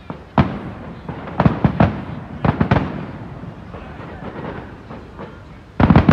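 Aerial firework shells bursting: a single sharp bang, then two quick clusters of bangs, and a louder cluster of several bangs near the end.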